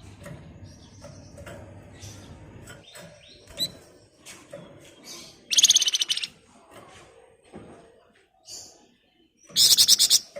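Flamboyan songbird singing: scattered short chirps, and twice (about halfway through and again near the end) a loud, very fast, high rattling trill, the 'ngebren' burst.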